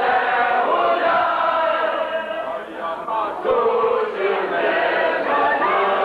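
A group of people singing a song together, many voices loud and sustained, with the tune gliding between held notes.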